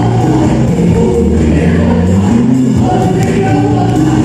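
Loud music with singing voices, held notes over a steady low line, playing as backing for a live dance performance.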